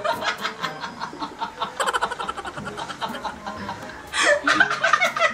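Two women laughing and giggling in quick bursts, the laughter growing louder about four seconds in.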